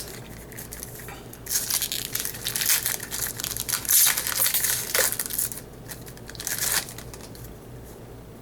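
Wrapper of a baseball card pack being torn open and crumpled: a run of crinkling, rustling bursts from about a second and a half in, with another short crinkle near the end.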